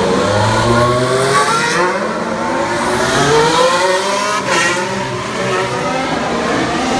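2018 Formula 1 car's turbocharged 1.6-litre V6 engine accelerating hard, its pitch climbing twice with a sharp break about four and a half seconds in, then running on steadier.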